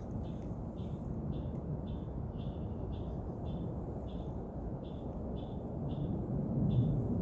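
A small animal outdoors calls in a steady series of short, high chirps, about two a second, at an even pitch, over a constant low background rumble.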